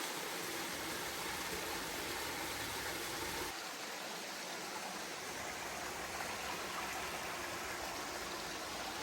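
Steady rushing of creek water over falls, an even hiss with no pauses.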